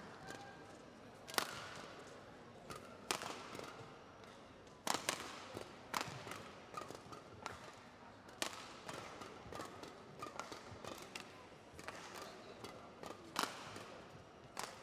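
Badminton rackets striking the shuttlecock in a doubles rally: a dozen or so sharp cracks at uneven intervals. Between the hits there are short squeaks of shoes on the court.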